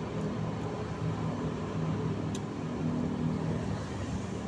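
Steady low mechanical rumble and hum, like a running engine or machinery, with a single sharp click about halfway through.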